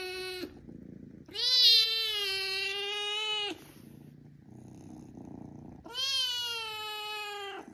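Young orange-and-white kitten crying with long drawn-out meows of about two seconds each: one trailing off just after the start, another about a second in, and a third near the end.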